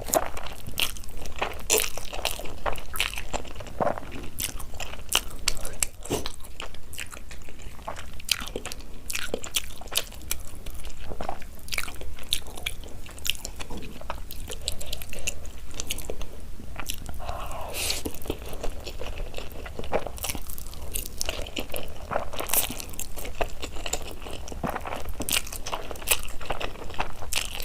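Close-miked eating: a person taking crunchy bites and chewing, with many sharp, irregular crackles several times a second.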